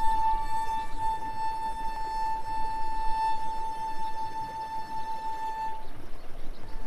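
A steady, high, whine-like tone held for several seconds that breaks off briefly near the end, with faint bird chirps behind it.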